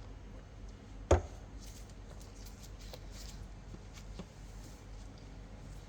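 Handling of tools and metal parts while working on a dodgem's drive unit: one sharp knock about a second in, then faint scattered clicks and small knocks.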